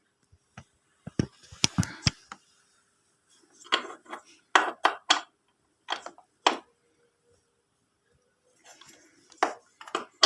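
Metal spanner and nut clinking and clicking against a motorcycle's steel mounting bracket as a nut is fitted and tightened by hand, in irregular clusters of sharp clicks with short pauses between.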